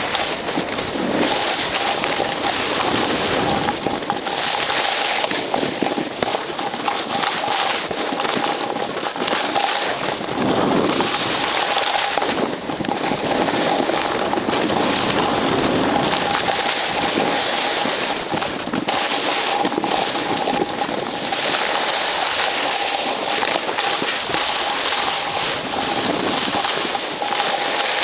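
Snow scraping and crackling under a rider sliding down a slope, swelling and easing every few seconds, mixed with wind noise on the microphone. A thin steady high tone sits underneath.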